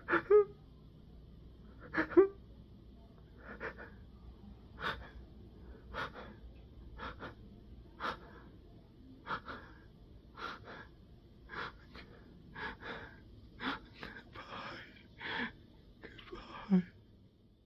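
A man sobbing: a run of short, wheezing, gasping breaths about once a second, with two louder voiced sobs in the first couple of seconds.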